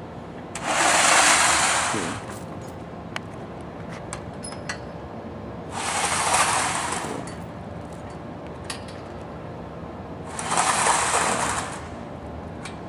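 Steel pull sled loaded with a weight plate scraping across concrete as it is dragged by rope: three pulls about five seconds apart, each slide lasting about a second and a half.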